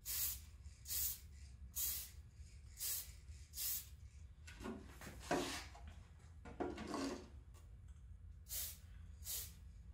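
Aerosol spray paint can hissing in about nine short bursts, mostly about one a second, as paint is sprayed in light passes onto the inside of a clear Lexan RC car body; a few soft handling noises fall in the middle.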